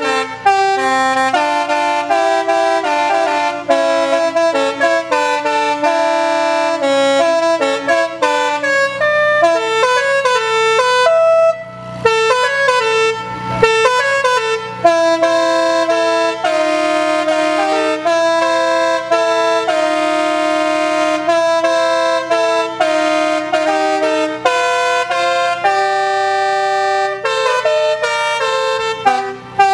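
The Great American Horn Machine, a trailer-mounted bank of vehicle and air horns, playing a tune as chords of held, honking notes that change pitch from moment to moment, with a short break about twelve seconds in.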